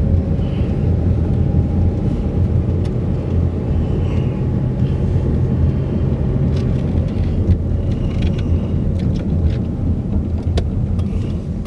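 Car driving slowly, its engine and tyre noise heard from inside the cabin as a steady low rumble.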